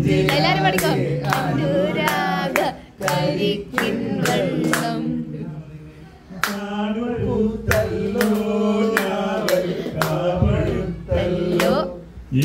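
A man singing into a handheld microphone while people clap along on a steady beat.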